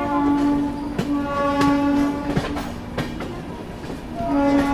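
Train horn sounding in repeated blasts of one steady pitch. The first runs on until about a second in, the second lasts from just after a second to nearly three, and the third starts near the end. Under the horn, coach wheels clatter over rail joints and points as the train runs out of the station.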